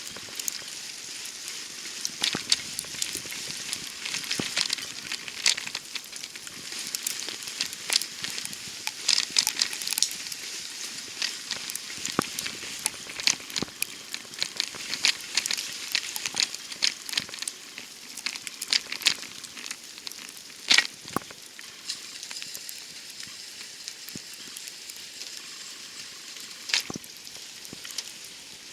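Falling wet snow crackling and ticking on surfaces, a steady fizzing hiss broken by many irregular sharper ticks.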